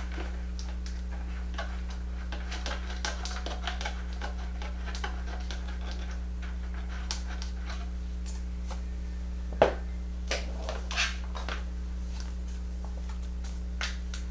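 Small clicks and light rustles of objects being handled, with one sharp knock about nine and a half seconds in and a few softer knocks after it, over a steady low electrical hum.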